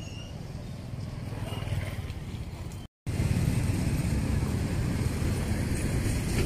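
Busy market-street ambience: a steady low rumble of passing motorbike and street traffic. The sound drops out for a split second about three seconds in, and the rumble is louder after it.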